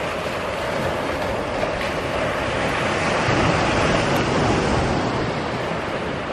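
Ocean surf washing and breaking, a steady rushing noise that swells a little around the middle.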